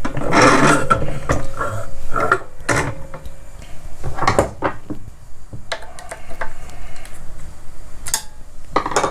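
Knocks and clatter of a large plastic spool of fishing line being slid onto a metal spindle and handled, with a cluster of knocks at the start and single sharp knocks every few seconds after.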